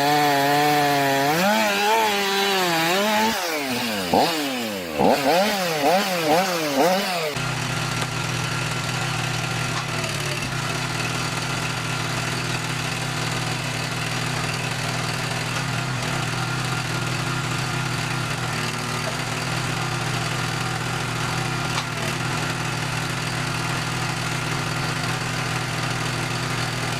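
STIHL chainsaw cutting through a log, its engine pitch rising and falling quickly as the chain bites and eases. About seven seconds in, this gives way abruptly to a small engine running at a steady speed.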